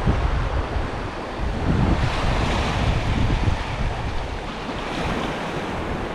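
Sea waves breaking and washing up the beach on an incoming tide, with wind buffeting the microphone in low gusts. The wash swells about two seconds in.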